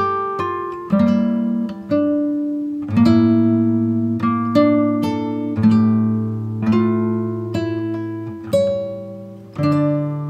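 Background music: acoustic guitar playing slow, ringing chords, a new chord struck about once a second and left to fade.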